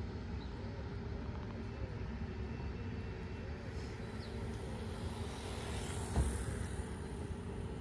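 Steady low rumble of distant road traffic, with a short thump about six seconds in.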